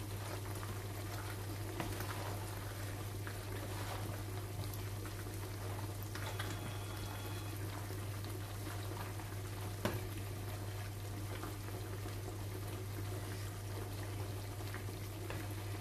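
Beef simmering in a frying pan, a steady bubbling and sizzling hiss over a low constant hum, with a few soft clicks of a wooden spoon stirring pasta salad in a bowl.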